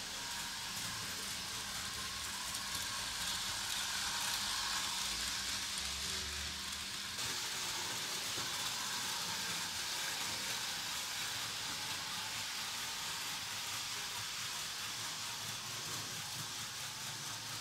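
Märklin V 160 'Lollo' HO model diesel locomotive pulling its coaches around the layout on metal track: a steady rolling hiss of wheels on the rails.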